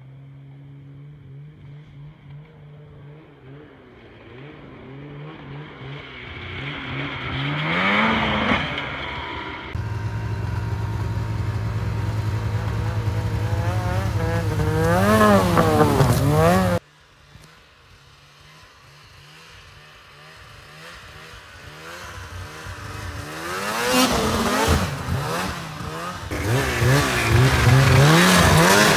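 Snowmobile engines idling and revving across several short clips, the pitch swooping up and down with each throttle blip and the sound changing abruptly at each cut; the loudest revs come near the end.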